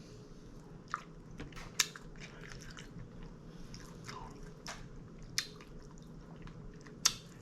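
Close-up mouth sounds of a person eating strawberries with dark chocolate hummus: quiet chewing with a few short, sharp wet clicks scattered through.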